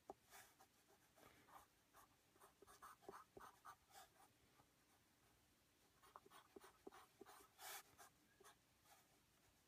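Pencil drawing on paper: faint, short scratchy strokes in quick runs, with a pause of about a second and a half midway.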